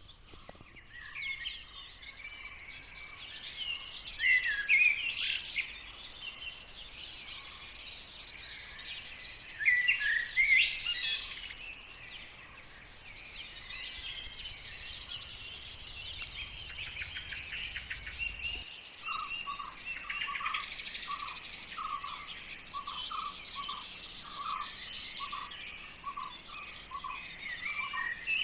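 A morning chorus of several songbirds, with overlapping chirps and trills and louder bursts about 4 and 10 seconds in. From about two-thirds of the way through, one bird repeats a lower short note about twice a second.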